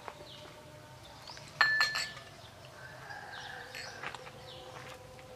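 A few sharp clinks of dishes or a utensil, ringing briefly, about one and a half seconds in, with faint bird chirps in the background.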